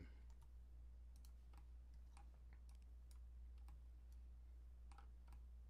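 Faint, scattered clicks of a computer mouse and keyboard, about a dozen over a few seconds, irregularly spaced, over a low steady hum.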